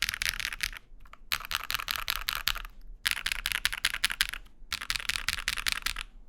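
Fast typing on a custom mechanical keyboard with KEYS U Studio Bunny linear switches (PC top housing, PA bottom housing, LY stem, early bottom-out) on an aluminium plate: rapid runs of key clacks, broken by four short pauses.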